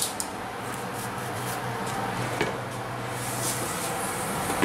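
Light kitchen handling of a metal baking tray and a ceramic dish, with a few faint clicks and knocks, over a steady low hum.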